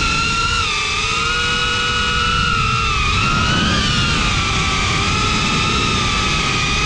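FPV drone's brushless motors and propellers whining, the pitch shifting with throttle: mostly steady, with small dips and a brief rise about four seconds in, over a rush of air.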